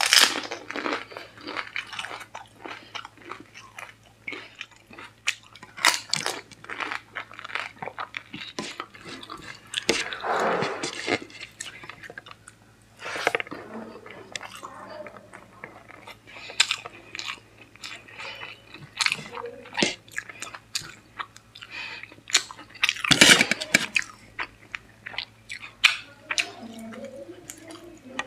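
Close-miked eating: a crisp pani puri shell crunching as it is bitten, then steady chewing of egg biryani eaten by hand, with many small crunches and mouth clicks. The crunching is loudest about a third of the way in and again near the end.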